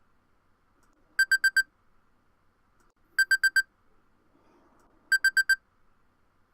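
Electronic alarm clock going off with a rapid beep-beep-beep-beep, groups of four short high beeps repeating about every two seconds, three groups in all.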